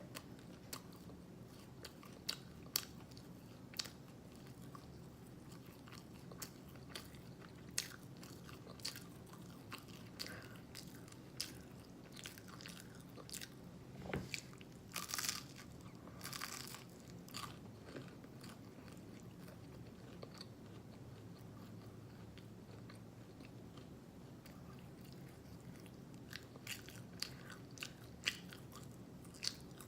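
Mouth sounds of someone eating Eggo cinnamon waffles: chewing and lip smacking, with short wet clicks every second or so and two longer, noisier smacks about halfway through. A faint steady low hum sits underneath.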